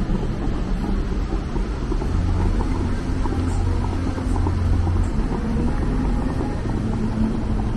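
Steady low rumble of city street traffic, with a deeper hum that swells from about two to five seconds in.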